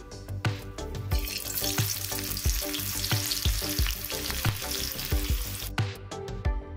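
Sliced onions sizzling in hot oil in a non-stick kadai. The sizzle starts about a second in, when the onions go in, and cuts off near the end, over background music with a steady beat.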